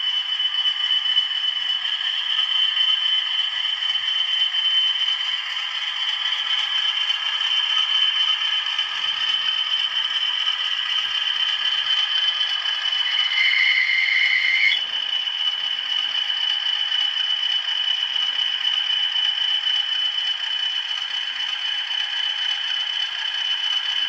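The sound decoder of an older sound-fitted Bachmann OO-gauge Class 20 model locomotive playing its diesel engine sound through the model's small speaker: loud, steady and tinny, with nothing in the bass. About 13 seconds in, a short high tone sounds for about a second and a half.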